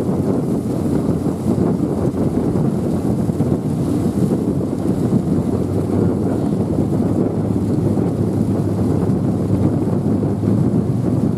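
Steady wind noise on the microphone over the low, even rumble of a passenger ferry's engines as the ferry manoeuvres in to berth at a pier.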